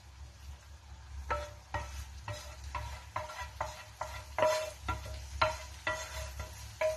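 Repeated metallic knocks and scrapes as thick tomato sauce is worked out of a metal saucepan onto chicken in a frying pan. There are about two or three short strokes a second, each with a brief ring, starting about a second in, over a steady low hum.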